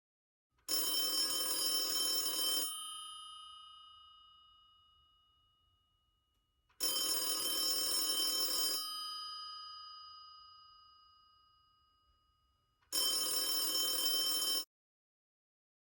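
Telephone bell ringing: three rings of about two seconds each, some six seconds apart. The first two ring on and fade slowly, and the third cuts off suddenly.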